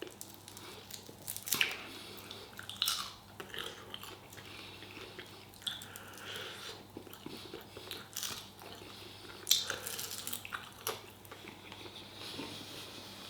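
A person chewing and biting into hot-sauce-coated chicken, with irregular wet mouth clicks and smacks, a few louder ones about a second and a half in, around three seconds and near the ten-second mark.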